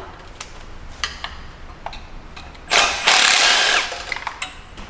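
A few light metallic tool clicks, then a power tool runs in one loud burst of about a second, undoing a fastener on the turbocharger's oil drain line.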